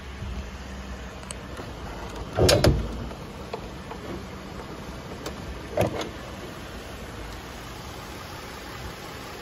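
Steady low hum of a 3.7-litre V6 idling, broken by two short clunks about three seconds apart.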